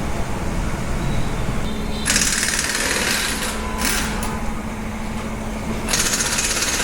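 Compressed-air tool at a tyre shop, giving three bursts of loud hissing air over a steady low machine hum.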